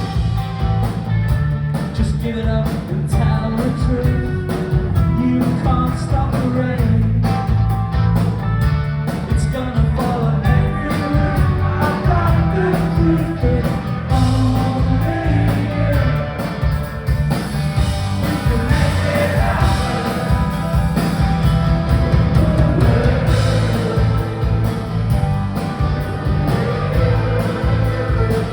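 Live rock band playing loudly, with a steady drum beat over bass and guitar.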